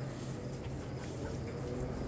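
Steady low hum of a barn ventilation fan, with a few faint ticks and knocks.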